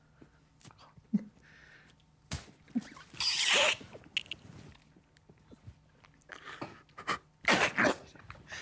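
A sharp slap about two seconds in, then stifled laughter from a group trying to stay silent, with a loud breathy burst a second later and scattered small clicks and shuffles.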